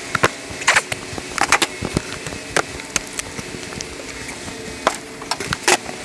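Wooden beehive frames and honey super boxes knocking and clacking as frames are handled and set into a super, about a dozen sharp knocks at irregular intervals over a steady hum.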